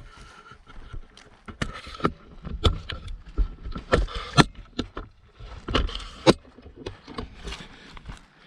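Footsteps walking, with irregular sharp knocks and clicks over a low rumble.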